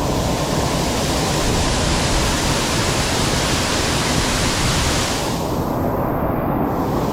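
Waterfall: loud, steady rushing water. The higher hiss thins out about five and a half seconds in.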